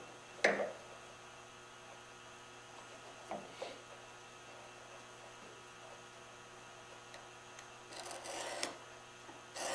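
Steady mains hum, with a sharp click about half a second in and a few faint ticks as a steel square is set against the wood, then a short scratch near the end as a marking knife scribes a layout line into curly maple.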